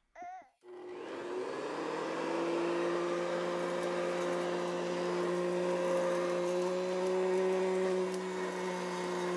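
A toy vacuum cleaner's small motor switched on, spinning up over about a second and then running with a steady whirring hum. A brief baby-doll cry sounds just before it starts.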